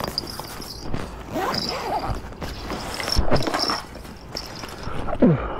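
Fishing backpack and gear being handled and packed: rustling and scraping of fabric with light knocks and short creaks. A faint steady high-pitched whine runs underneath.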